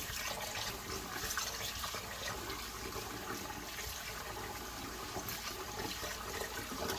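Kitchen tap running into a pot of basmati rice as the rice is washed: a steady rush of water.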